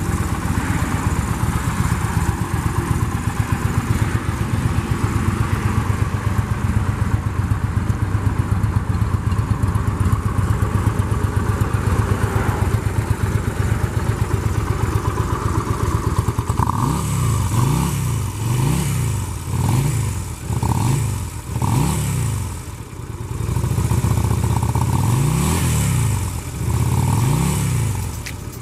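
Yamaha V-Star 250's air-cooled 248 cc V-twin idling with an even, fast pulse. From about sixteen seconds in it is blipped through a series of quick revs, each rising and falling back.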